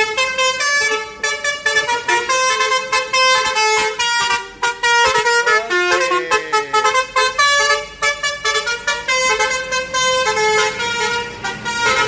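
An intercity bus's 'basuri' telolet horn, a musical bus horn, playing a fast tune of short, changing horn notes with a swooping glide about halfway through.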